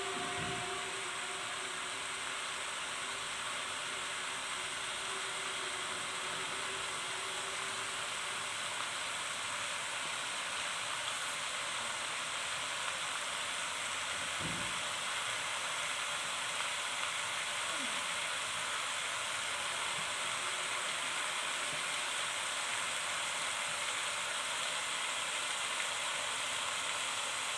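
Chicken pieces frying with curry paste in an aluminium electric wok: a steady sizzle, with a couple of faint low knocks.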